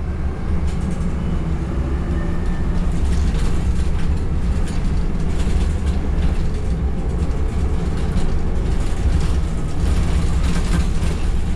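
Van Hool A300 city bus heard from inside the passenger cabin while driving: a steady, low engine drone with short knocks and rattles from the body and fittings, more of them in the second half.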